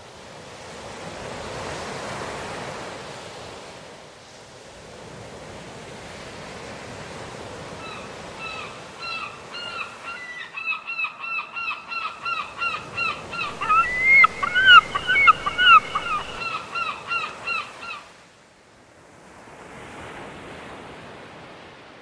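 Gull calling in a long, fast series of repeated squawks, a few calls a second for about ten seconds, loudest near the middle of the run. Surf washes in swells before and after the calls.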